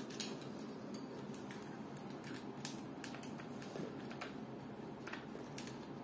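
Scattered light clicks and taps of things being handled, over faint steady room noise; no power tool is running.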